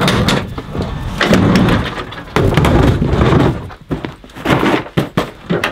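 Pickup tailgate unlatched and dropped, then gear set into the truck bed: a run of clunks and knocks with rustling of a soft bag.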